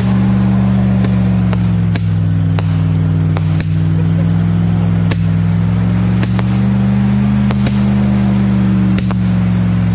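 A pickup truck's engine running steadily, its pitch rising a little and settling back about three quarters of the way through. Scattered sharp cracks from fireworks going off.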